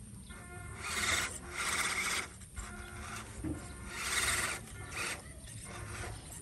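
Electric motor and gearbox of an RC crawler truck whining in surges as throttle is applied, three louder bursts, with its tyres scrabbling through loose sand.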